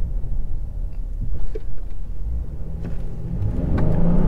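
Inside the cabin of a 2021 Honda Ridgeline, a low engine and road rumble. About three and a half seconds in, the 3.5-litre V6 starts to rev up with rising pitch as the truck accelerates hard from a stop in first gear.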